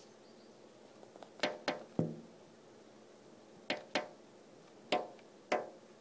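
A small bird pecking at a window pane, sharp taps on the glass in quick clusters: three about a second and a half in, two near four seconds, two more near five seconds.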